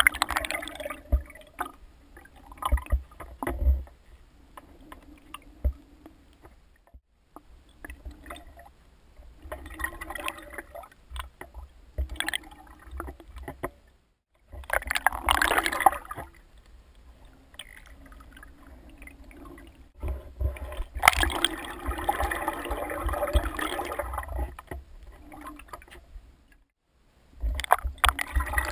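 Water sloshing and gurgling as heard underwater in a swimming pool, with low rumble and scattered knocks in uneven bursts. The sound breaks off briefly twice.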